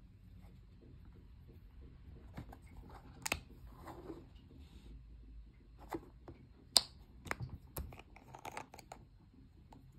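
Packaging being handled and opened by hand: scattered clicks, crinkles and rustles, with one sharp click about two-thirds of the way through.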